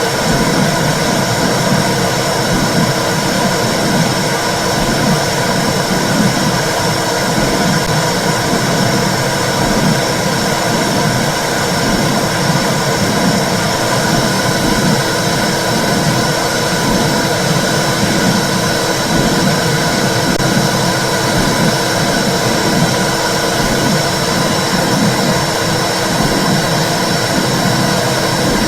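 Womb sound, as heard from inside the uterus, played to soothe babies: a steady, loud rushing whoosh with an uneven low throb beneath it.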